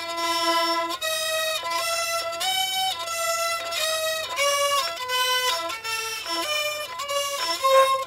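3D-printed hurdy-gurdy strung with D violin strings tuned to E, its cranked wheel bowing the strings as keys are pressed, playing a stepped melody. Notes are held for about half a second to a second at first, then come quicker in the second half.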